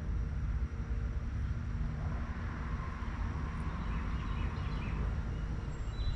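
Steady outdoor background noise: a low rumble with a light hiss, with no single sound standing out.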